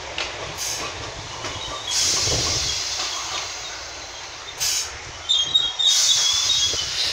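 Class 455 electric multiple-unit train running along the platform, its wheels rumbling on the track. High-pitched squealing comes in from the running gear about five seconds in, louder toward the end.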